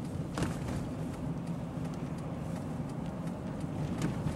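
Steady engine and road noise inside a moving car's cabin, with two short faint clicks, one under a second in and one near the end.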